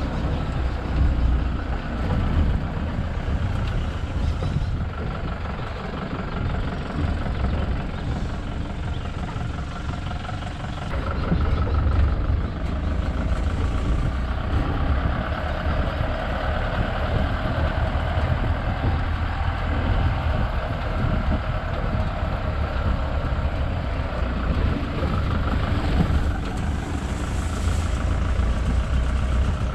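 Safari vehicle's engine running steadily with a low rumble, a little louder from about eleven seconds in.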